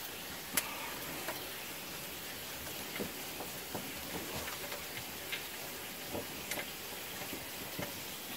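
Scattered light clicks and taps at irregular intervals, over a steady hiss.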